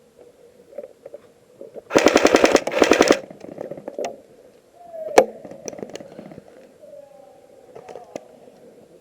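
Airsoft AKM rifle firing two quick full-auto bursts, a rapid even rattle about two seconds in, broken by a short gap. A single sharp snap follows about five seconds in, with fainter clicks scattered around.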